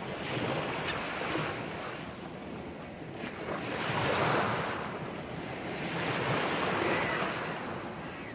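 Small sea waves washing against a concrete embankment wall, swelling and easing every few seconds, with wind buffeting the microphone.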